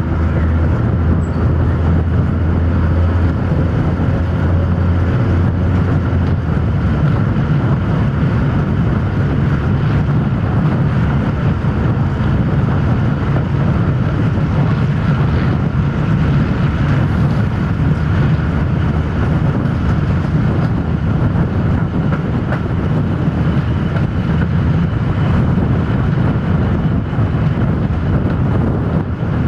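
Old Malaxa 1000-series diesel railcar running, heard out of the open window: a steady engine drone under wheel and wind noise. About seven seconds in, the deep engine note gives way to a higher one.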